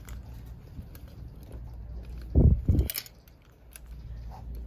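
Handling noise from sorting clothes on a store rack: fabric and hangers brushing against the phone, with two loud, dull thumps close together about halfway through and a sharp click just after.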